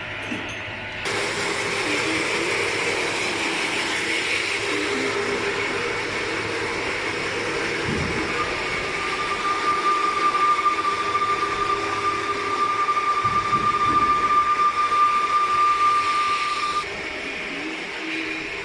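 Electric welding on a machine frame: a steady crackling hiss that switches on about a second in and cuts off suddenly near the end, with a steady high whine joining about halfway through.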